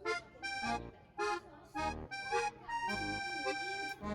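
Background music: a sustained, reed-like melody over a steady beat.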